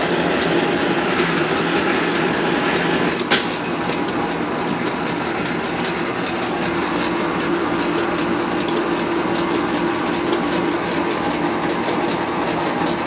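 Hendey 8-speed engine lathe running under its 5-horsepower motor, a steady mechanical din of turning gears and drive with a constant hum. A single sharp clack about three seconds in.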